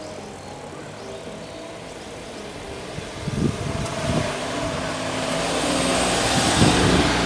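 A train approaching and running through a railway level crossing: the noise builds from about three seconds in, with a few heavy thumps of the wheels.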